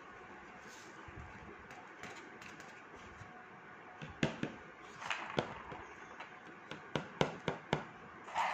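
Handling of a card sheet, then a series of light sharp taps from about four seconds in as the card is knocked against a plastic tray to shake off loose rangoli powder.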